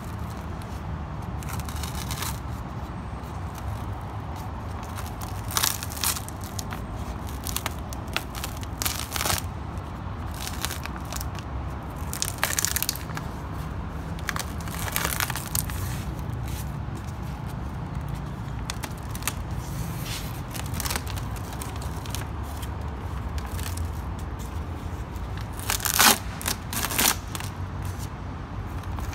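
Plastic vapour-barrier sheet inside a car door being peeled off its sticky sealant, crackling and tearing in irregular bursts, loudest near the end.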